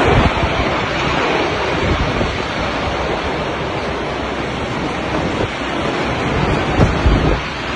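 Storm-force wind rushing and gusting, buffeting the microphone unevenly, with the strongest gusts at the start and again shortly before the end.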